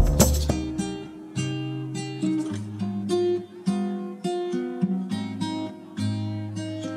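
Background music: an acoustic guitar playing a melody of separate plucked notes.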